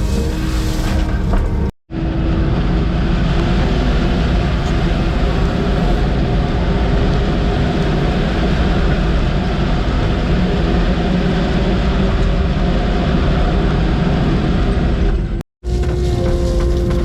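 Diesel engine of a piece of earthmoving equipment running steadily under load while grading stone and dirt. The sound cuts out abruptly for an instant about two seconds in and again near the end.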